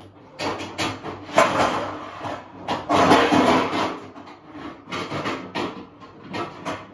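Kitchen cookware clattering and knocking as a large oven tray is dug out of a low cupboard, with a string of irregular knocks and two longer rattling, scraping spells.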